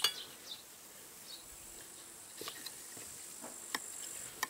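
Steady high-pitched chirring of insects in the grass. A few light clicks and knocks come from the chainsaw's plastic and metal parts being handled during disassembly, one right at the start and others about two and a half, three and a half and four and a half seconds in.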